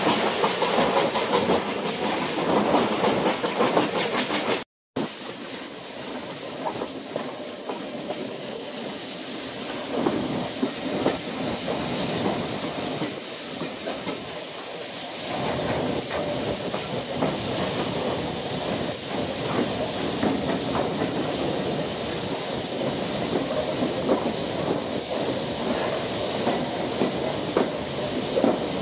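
Railway carriage running slowly along the track, heard from an open window: a steady running din with the wheels clicking over rail joints, and a faint hiss. The sound cuts out for an instant about five seconds in.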